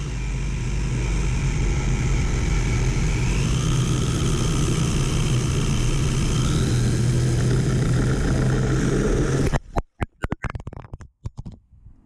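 An RC drift car's brushless electric motor running, its high whine rising in pitch in steps over a steady low rumble. About nine and a half seconds in, the sound cuts off abruptly and breaks into choppy crackles and dropouts.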